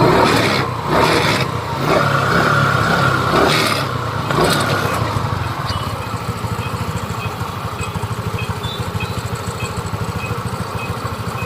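TVS Jupiter scooter's single-cylinder four-stroke engine running: it is revved in a few surges over the first seconds, then settles to a steady idle. The drive side runs smoothly with none of the 'ghar ghar' grinding, now that the worn pulley bush has been replaced and the variator and clutch shoes cleaned.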